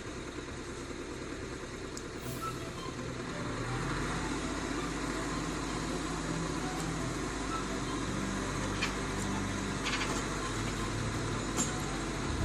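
A heavy vehicle's engine running steadily, getting louder about three and a half seconds in, with a few short clicks or knocks in the second half.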